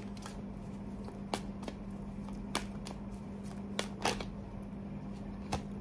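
A tarot card deck being shuffled by hand: a run of irregular, sharp card snaps and flicks over a steady low hum.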